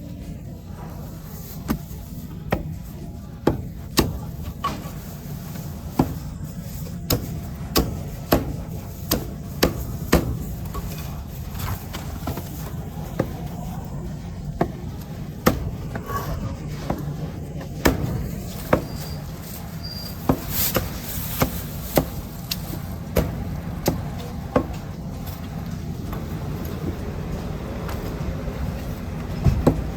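Heavy cleaver chopping roast meat on a thick wooden chopping block: sharp, irregular strikes about once a second, over a steady low hum.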